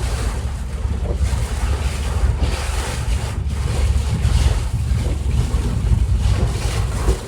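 Steady low rumble and hiss of a vehicle driving over a rough, muddy road, heard from inside the cabin.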